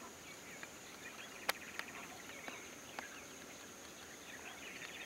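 Lakeshore ambience: a steady high insect drone with scattered bird chirps, and a few sharp clicks about a second and a half and three seconds in.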